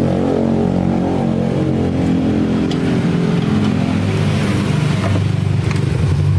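Yamaha Lexi scooter's single-cylinder four-stroke engine running steadily at idle, its pitch wavering slightly, after a repair of the wiring terminal for its error code 12.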